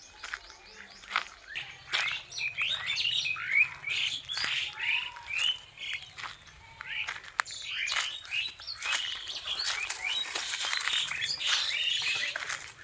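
Many birds chirping at once, a busy chorus of short, quick chirps and falling notes that grows denser and louder in the second half, with scattered sharp ticks among them.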